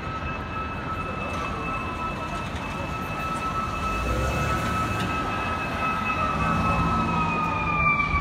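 Emergency vehicle siren holding one long steady note that begins to slide down in pitch near the end, growing slowly louder, over the low rumble of city traffic.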